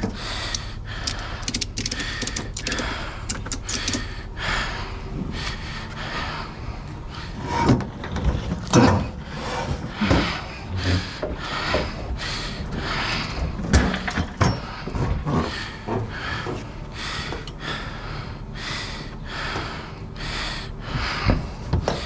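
Continual irregular clunks, knocks and rattles of hard objects being handled, several a second, with a few louder knocks about 8, 9, 10 and 14 seconds in.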